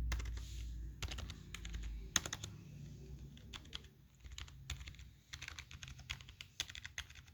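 Computer keyboard number pad keys pressed one at a time, giving a string of separate, irregular key clicks, with a low rumble under them for the first two seconds.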